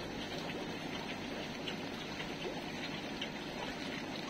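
Steady trickling and bubbling of aquarium filtration water, with a low hum underneath and faint scattered ticks.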